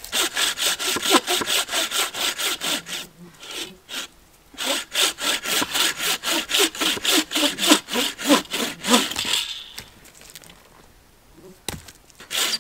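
Bucksaw cutting through a dense log by hand in fast, even back-and-forth strokes. It stops briefly after about three seconds, saws on, goes quiet for a couple of seconds, then starts again near the end.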